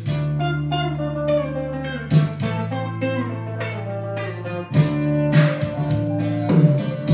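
Recorded guitar music played back through a pair of JBL L300 loudspeakers: plucked guitar notes over sustained low bass notes.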